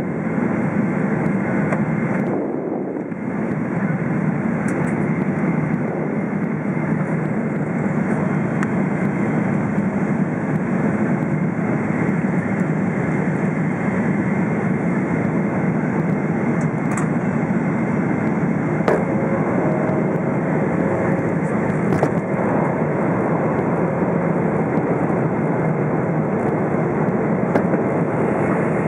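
Steady cabin noise inside a Boeing 777-300ER in flight: the even rush of airflow and the GE90 engines heard through the fuselage. A couple of faint clicks come through about two-thirds of the way in.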